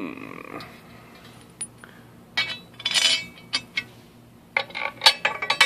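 Loose metal bolts clinking and rattling as they are handled and picked through. A single metal clank rings briefly at the start, and two bursts of clinking come about two and a half seconds in and again near the end.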